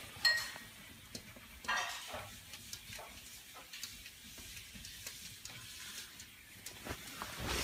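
Tableware being handled: a sharp, ringing clink near the start, a second clatter just under two seconds in, and light ticks and scrapes throughout.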